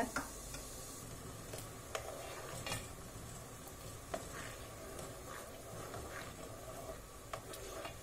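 Wooden spoon stirring grape juice that is simmering down to a thick sour syrup in a metal pot, with a faint steady bubbling hiss. The spoon knocks lightly against the pot a few times.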